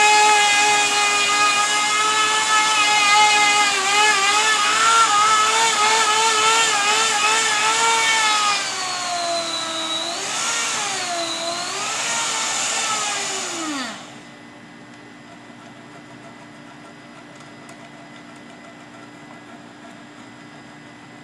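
Grinder spinning a 4-inch Super Burr carving bit as it shapes wood. The motor's whine wavers and sags in pitch as the burr bites under load, then winds down about fourteen seconds in, leaving only a faint steady hum.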